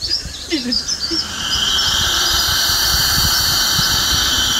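Komodo dragon giving a long threat hiss, a loud breathy rush that starts about a second in and holds steady without a break.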